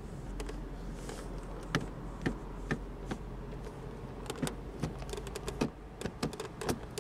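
Automatic gear selector of a 2018 Volkswagen Beetle being moved through its positions: a string of irregular sharp clicks over a steady low hum.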